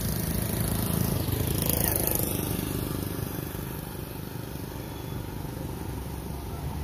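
A motor vehicle's engine running as it passes, loudest about two seconds in, then fading to a steady low rumble.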